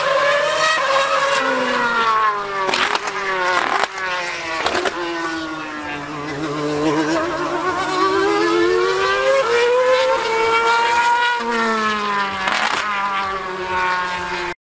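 2013 Mercedes Formula 1 car's 2.4-litre V8 screaming at high revs as it laps. Its pitch drops and climbs again as it slows for corners and accelerates out, with a few sharp cracks along the way. The sound cuts off abruptly near the end.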